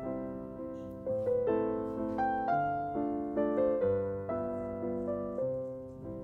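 Background piano music: a gentle tune of notes struck one after another and left to fade.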